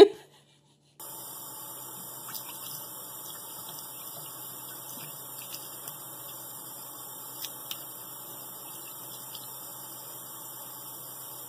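A thin stream of tap water running steadily into a bathroom sink, starting about a second in, with a few faint ticks.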